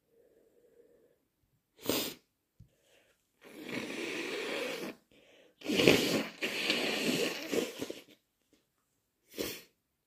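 A person's wet, messy induced sneezes and nose blows: a short sharp burst about two seconds in, two long noisy blasts in the middle, and another short burst near the end.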